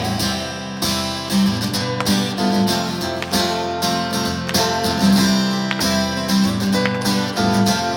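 Live acoustic guitar strumming chords in an instrumental passage of a pop-rock song, with regular strokes and no singing.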